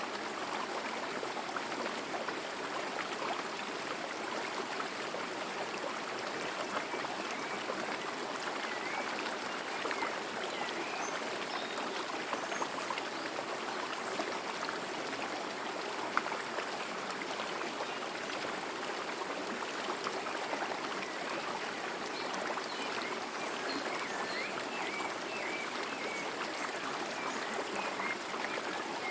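Forest stream running steadily over rocks, a constant babbling rush of water. A few faint high chirps come through in the middle and again near the end.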